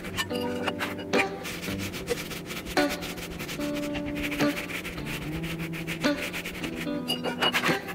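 Lemons rubbed along a microplane zester, rasping scrapes of the peel every second or two, over background music with long held notes.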